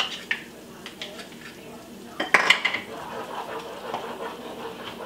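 A measuring spoon and spatula clicking and knocking against a small saucepan as chopped garlic goes in, with a louder run of taps about two and a half seconds in. After that a spatula stirs butter, onion and spices in the pan, which are just starting to sauté with a light sizzle.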